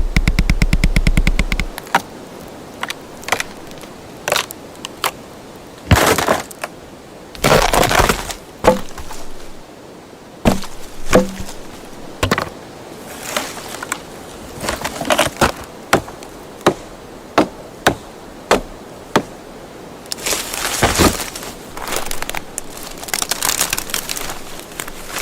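Wood cracking and snapping: a fast rattling creak in the first couple of seconds, then a string of separate sharp cracks, some drawn out into longer splintering, breaking crunches.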